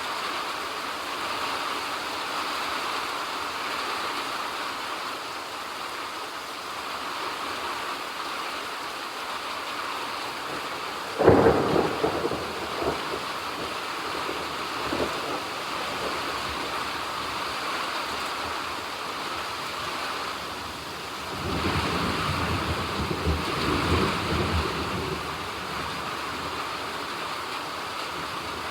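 Steady rain falling, with a sudden clap of thunder about eleven seconds in that rolls on for a few seconds, and a second, longer roll of thunder about ten seconds later.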